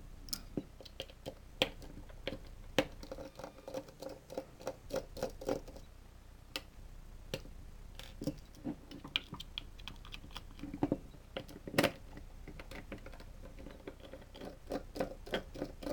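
Irregular light clicks and taps of a small screwdriver working the corner screws of an LED floodlight's rear driver housing, and of the housing being handled. A few of the clicks are sharper than the rest.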